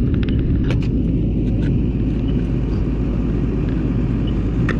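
Steady low rumble, with a few faint clicks near the start and again near the end.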